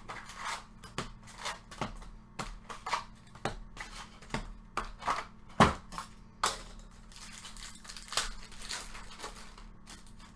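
Baseball trading cards being flipped through by hand, a quick slide-and-snap for each card at about two a second, with one sharper snap about halfway through.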